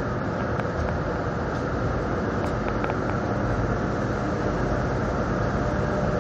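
Steady rumble of a car ferry's engines and onboard machinery, heard on deck.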